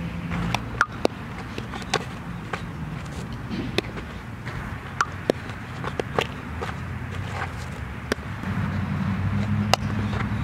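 Softball fielding practice: a series of sharp, scattered knocks of a softball off a bat, the dirt and a leather fielding glove, over a steady low hum.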